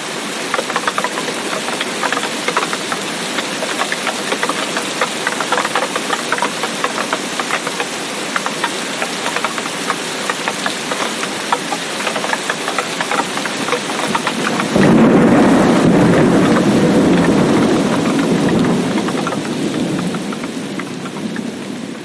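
Heavy tropical rain with dense, close drop impacts. About two-thirds in, a loud low rumble of thunder starts suddenly and slowly rolls away as the level fades.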